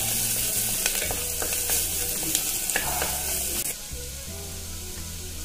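Chopped onions sizzling in hot oil in a steel pressure cooker as they are sautéed toward golden brown. The sizzle is a steady hiss with a few light clicks, and it drops to a quieter level a little after halfway.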